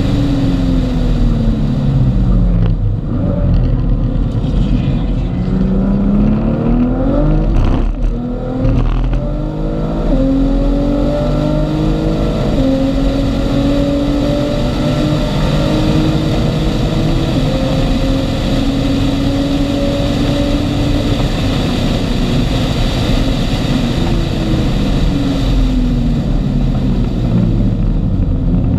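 Car engine at full track speed, heard from inside the cabin. Its pitch drops over the first few seconds, climbs hard with a sharp break about eight seconds in like a gear change, then rises slowly for a long stretch. It falls again near the end.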